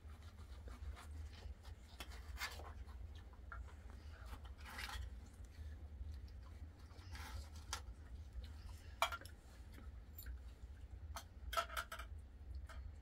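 Quiet eating and handling sounds as oranges are peeled and segments are taken from plates: scattered soft clicks and a few short rustles, over a steady low hum.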